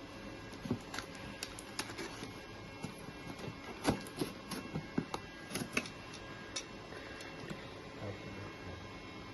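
Irregular clicks and light taps of a product box and its packaging being handled and opened.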